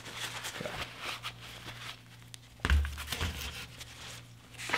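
Crinkling, rustling handling noise as a brake caliper is moved over a foil drip pan, then a dull thud about two and a half seconds in as the rear caliper body is set down on the cardboard-covered workbench.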